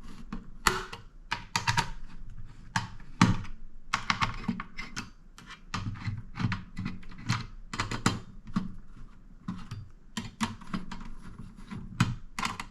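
Irregular small clicks and taps of a screwdriver and metal parts being handled on a mini desktop PC's chassis while its heatsink screws are undone.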